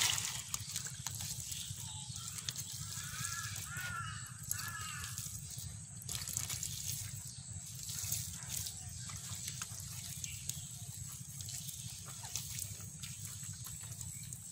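Bare hands scooping, squeezing and slapping thick wet mud: an irregular run of squelches and small wet slaps.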